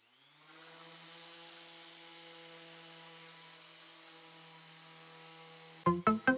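Makita random orbital sander running with 150-grit paper on a block of wood: a steady, even hum that starts about half a second in. Music starts near the end.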